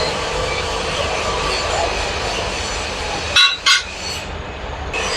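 Workshop machinery running with a steady hum, and two sharp metal knocks a third of a second apart about three and a half seconds in, as work goes on fitting a bearing to a motorcycle crankshaft.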